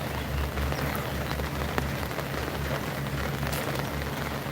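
Steady hiss of rain falling, with scattered drop ticks and an uneven low rumble underneath.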